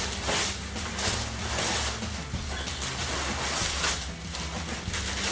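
Packing paper crinkling and rustling in irregular bursts as it is unwrapped from a shipped plant, over a steady low hum.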